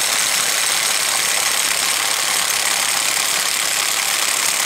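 Cordless impact wrench hammering steadily on a shaft nut of a Honda automatic transmission, working the tight nut loose. It stops abruptly just after the end.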